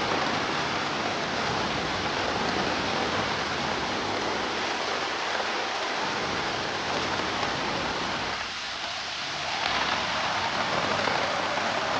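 Steady dense hiss of heavy rain and rushing floodwater. The low part of the sound dips briefly about eight and a half seconds in, then the hiss turns brighter.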